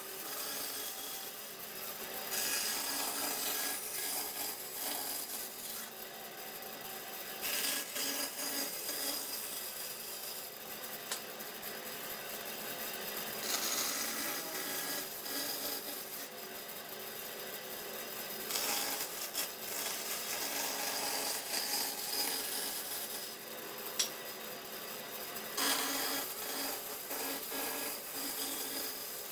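Band saw cutting through a thick glued-up wooden panel as it is fed along a cut line. The cutting noise keeps going but swells in several louder stretches, with one sharp tick late on.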